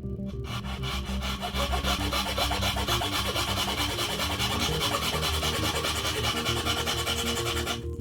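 Japanese hand saw sawing down a dovetail tail line in a wooden board with quick, even strokes, starting about half a second in and stopping just before the end.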